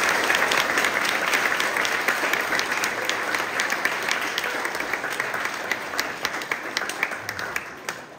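Audience applauding: a dense patter of many hands clapping that slowly thins out and fades near the end.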